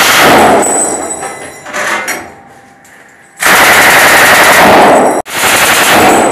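Belt-fed M240 machine gun firing rapid bursts from inside a room, echoing off the walls. One burst runs on for the first second or so, a short burst comes about two seconds in, then a long burst from about three and a half seconds breaks off just after five seconds and picks up again at once.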